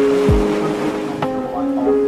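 Background music: held notes over a deep kick-drum beat with sharp percussive clicks.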